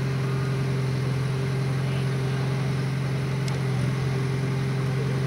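Liebherr truck-mounted crane's diesel engine running at a steady speed, a continuous low hum, as the crane lifts a boat.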